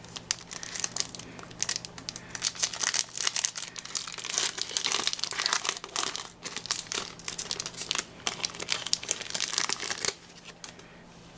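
Foil booster pack wrapper crinkling and crackling as it is handled and torn open, in dense bursts that stop near the end.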